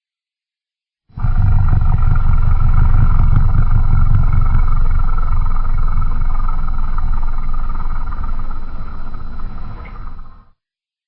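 Custom-made Godzilla roar sound effect: one long, deep roar starting about a second in and lasting about nine seconds, tailing off near the end before stopping.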